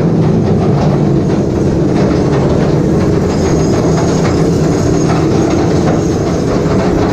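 The Calico Mine Ride's train of ore cars rolling along its track, heard from on board: a steady low rumble with a fast rattling clatter from the wheels.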